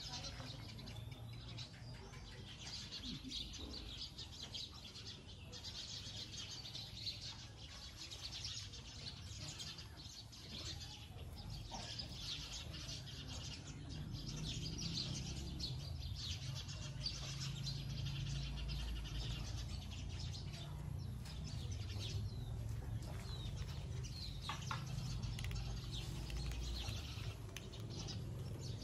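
Many small birds chirping continuously in a dense high chorus, over a steady low rumble.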